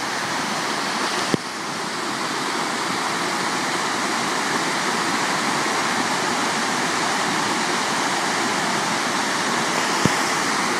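Waterfall on a creek: a loud, steady rush of falling water.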